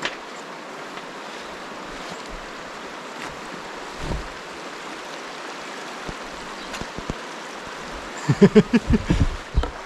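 Steady rushing of the Franklin River. Near the end comes a second or so of short, loud, pitched sounds.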